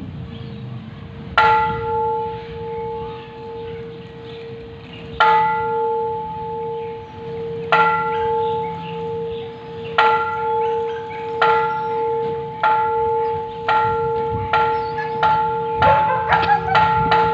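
A Thai temple bell struck by a monk, ringing on with a steady hum. The strokes start several seconds apart and speed up until they come in a quick run near the end, the usual accelerating strike pattern of a temple bell call.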